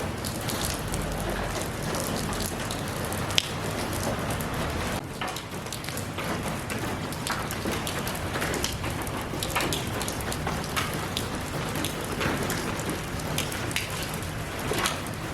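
Steady rain falling, with many individual drops pattering and ticking on a hard surface.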